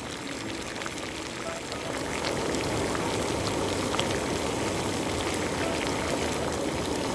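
Chicken adobo's soy-and-vinegar liquid boiling in a pot: a steady bubbling and crackling that gets louder about two seconds in.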